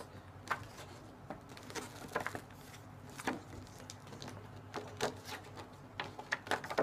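Paper cards and their packet being handled and opened: irregular light rustles, taps and clicks.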